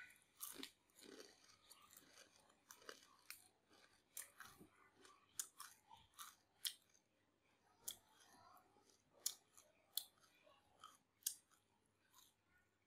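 Close-up chewing of a crispy rice cracker topped with pork floss: a string of short, sharp crunches about every half second to second.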